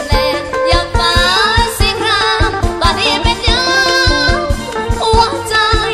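Thai band music with a singer's voice gliding and wavering over a steady, quick drum beat.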